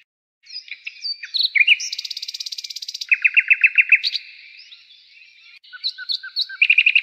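Songbirds singing in a series of varied phrases: a fast, buzzy trill, then a run of loud, quickly repeated sweeping notes, and another loud run near the end.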